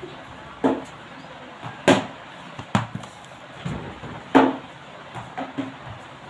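A plastic cricket bat striking a small ball, and the ball bouncing on a hard floor: a series of sharp knocks, four loud ones with fainter ones between.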